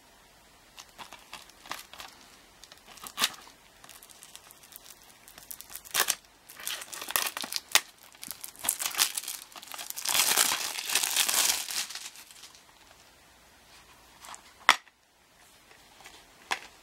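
Plastic shrink-wrap being torn off a DVD case and crumpled by hand, crinkling in uneven bursts that are densest in the middle. A sharp click about two-thirds of the way through, and another near the end, as the plastic DVD case is snapped open.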